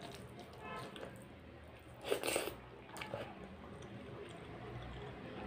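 Close-up eating sounds: fingers squishing boiled rice and dal on a metal plate, and mouth chewing. A louder, sharper sound comes a little over two seconds in.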